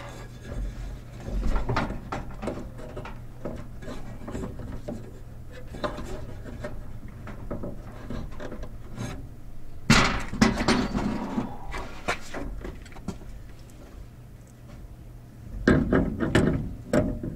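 Handling noises of work on an inverter's heavy DC cable connections: scattered knocks, clicks and rubbing of cables and tools against the terminals, with a louder clatter about ten seconds in and again near the end. A steady low hum runs underneath.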